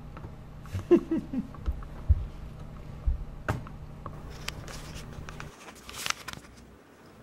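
Shuffling and light knocks of a dog and kitten shifting about in a padded dog bed inside a wire crate, with a brief squeak about a second in. A low hum under it stops abruptly about five and a half seconds in.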